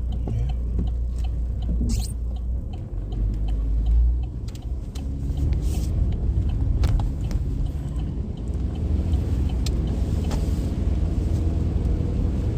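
Heard from inside the cabin of a car driving in the rain: a steady low rumble of engine and tyres, scattered light ticks of rain hitting the car, and a couple of brief hisses.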